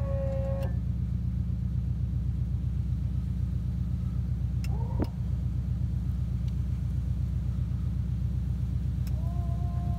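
Steady low mechanical drone with a fast even pulse: an RV's Lippert electronic leveling system working through its auto-level cycle. A couple of short pitched tones come near the start and near the end.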